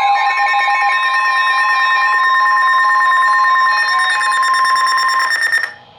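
Emergency Alert System attention tone: steady electronic alert tones with a fast pulsing buzz, cutting off suddenly near the end.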